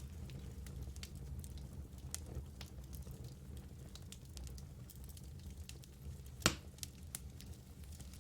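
Fireplace fire crackling over a steady low rumble, with scattered small ticks and one loud sharp pop about six and a half seconds in.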